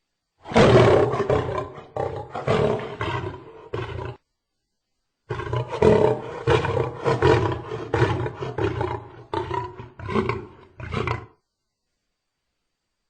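Lion roaring in two bouts, each opening with a loud roar followed by a run of shorter, fading calls, with dead silence between the bouts and after them.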